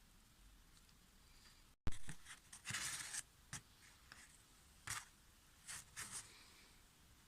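Handling noises of work on a bench: short scrapes and clicks of small parts or tools being moved. They start suddenly about two seconds in and come in about six irregular bursts.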